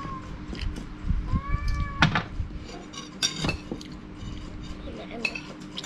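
Metal spoon clinking and scraping on a plate as a child eats rice, the sharpest clinks about two and three seconds in. Two short high cries that rise and fall are heard near the start and about a second and a half in.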